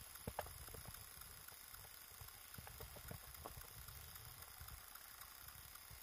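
Footsteps crunching in snow, faint and muffled through an action camera's waterproof housing: irregular soft crunches over a low rumble.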